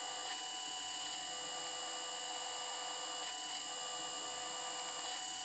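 Electric drill running steadily, a constant whine with no change in speed, while drilling 4 mm screw holes in steel hinge straps.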